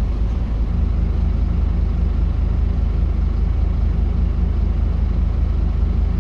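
Scania N270UB OmniCity bus's diesel engine running with a steady low drone, heard from inside the passenger saloon.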